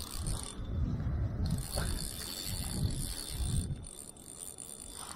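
Spinning reel being cranked to wind in line against a hooked fish pulling hard on the bent rod, its gears whirring, over a pulsing low rumble that eases off about four seconds in.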